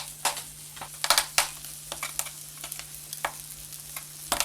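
Fish frying in a pan, well browned: a steady sizzle of hot fat with sharp taps and scrapes of a utensil against the pan, loudest in a quick cluster about a second in and again near the end.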